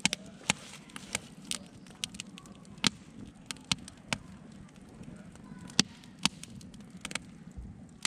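Wood campfire burning: sharp, irregular pops and crackles from the logs, a couple a second, over a steady low rush of flame. One pop stands out loudest, a little past the middle.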